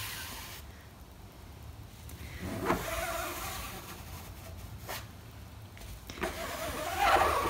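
Plastic squeegee scraping textile screen-printing ink across the mesh of a silk screen in the flood stroke that coats the screen before printing. Two main scraping strokes, one about two and a half seconds in and a louder one near the end.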